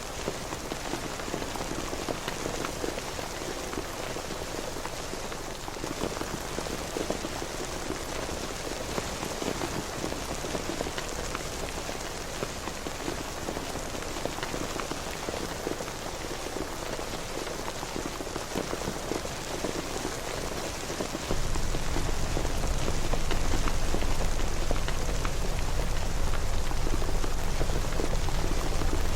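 Steady rain falling, an even hiss with many small drop ticks. About 21 seconds in, a deep low rumble comes in abruptly under the rain and holds, making it noticeably louder.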